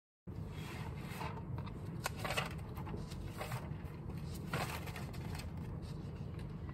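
Steady low background hum with several short rustling sounds and a sharp click about two seconds in.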